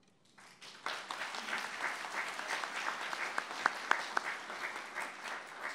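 Audience applauding: clapping starts about half a second in, quickly fills out into steady applause, and a few sharper single claps stand out near the middle.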